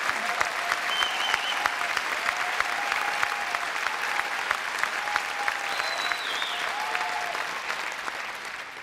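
Large concert-hall audience applauding after a song, with a few held cheers and whistles over the clapping. The applause starts to die away near the end.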